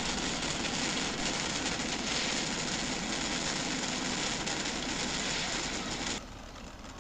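Loud, steady rushing noise with no clear pitch, which stops abruptly about six seconds in.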